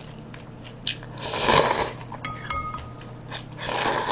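A person slurping cold naengmyeon noodles in chilled broth: two long, noisy slurps, one about a second in and one near the end, with a short click just before the first.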